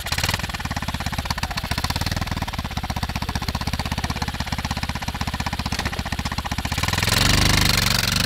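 A high-output 140cc single-cylinder pit-bike engine in a go-kart idling with a fast, even putter, then revved and louder for the last second or so.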